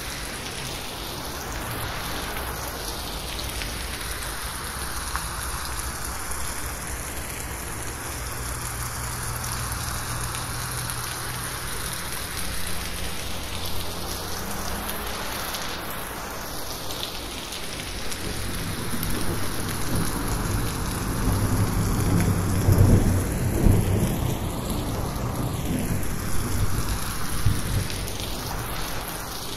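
Heavy rain falling steadily on a corrugated metal roof, with a low rumble of thunder building from a little past halfway and rolling loudest about three-quarters of the way through. The mix is 8D-processed, so the rain slowly sweeps around the listener.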